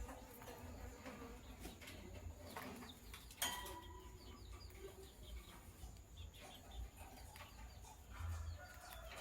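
Lovebirds chirping in short, faint, scattered calls, with one sharp louder sound about three and a half seconds in.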